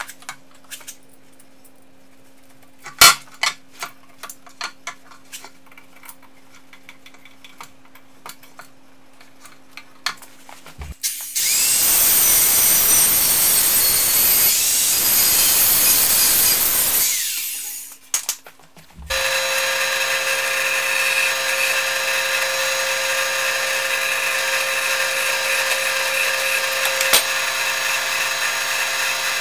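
Clicks and knocks of hydraulic hose couplings being fitted by hand. Then an angle grinder cuts a steel bar for about six seconds, loud and hissing, before winding down. Then a drill press runs steadily and stops near the end.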